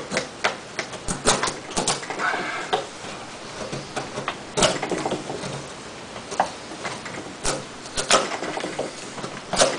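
A folding knife's blade carving chips off a block of softwood: irregular sharp cracks as the blade bites in and the chips split away, with scraping between the cuts.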